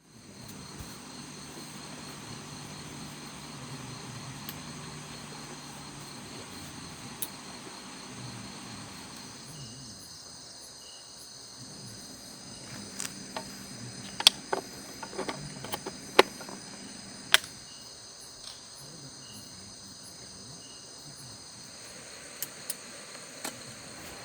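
A steady chorus of crickets or similar insects, made of several high, unbroken tones. Near the middle it is broken by a handful of sharp clicks or knocks, which are the loudest sounds.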